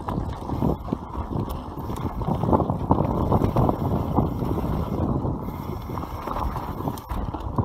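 YT Capra enduro mountain bike riding fast down a dry dirt trail: a steady muffled rumble of wind on the microphone and tyres on the ground, with frequent small knocks and rattles from the bike over bumps.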